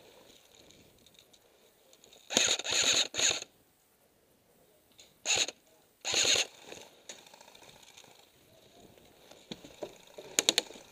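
Airsoft guns firing in rapid bursts: a long burst about two seconds in, a short one a little past five seconds, another just after six, and a quick string of about four shots near the end.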